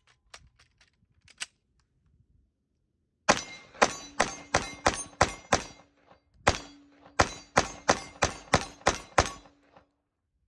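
FN FNX-45 Tactical .45 ACP pistol fired about fifteen times in quick succession: seven shots, a pause of about a second, then eight more. A few faint clicks of handling come before the first shot.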